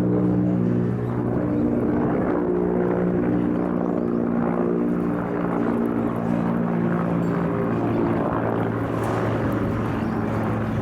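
Steady engine drone with a rich hum whose pitch shifts a little every few seconds.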